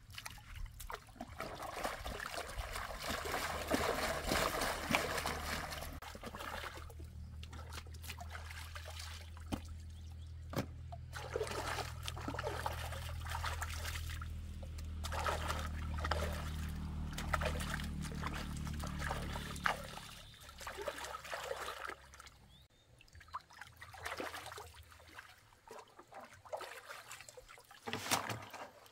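A motor runs with a steady low hum while water splashes and trickles. The motor stops about two-thirds of the way through, leaving only scattered splashes.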